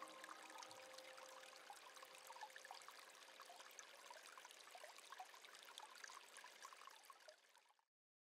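Faint trickling, babbling stream water. The last notes of chiming music die away in the first couple of seconds, and the water sound fades out just before the end.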